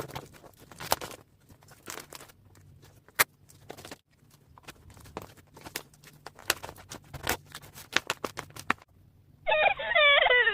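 Paper being handled: rustling, crinkling and light taps and clicks, irregular and of varying loudness. Near the end, a loud, wavering pitched sound lasting about a second.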